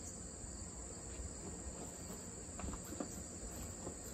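Steady high-pitched insect chorus, with a few faint clicks and knocks in the second half.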